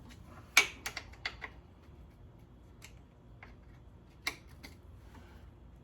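Hand tools working on bolts at a motorcycle's rear wheel: irregular sharp metallic clicks and knocks, a quick cluster in the first second and a half, the loudest about half a second in, then a few single ones, one louder about four seconds in.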